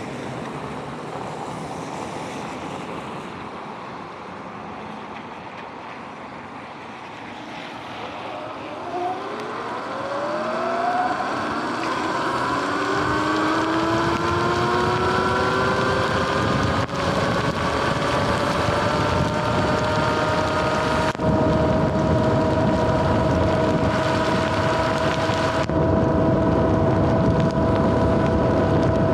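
Sur-Ron electric dirt bike pulling away from a stop: about a third of the way in its motor whine rises in pitch for a few seconds, then holds steady at cruising speed. Wind noise on the microphone grows louder with speed.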